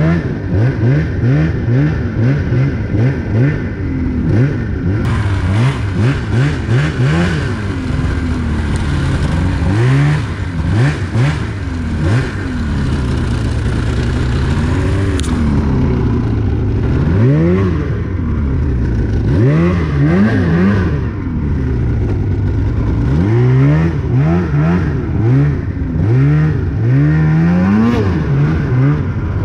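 Polaris snowmobile engine revving up and down over and over as the sled is ridden through deep powder, its pitch climbing and falling every second or two with the throttle.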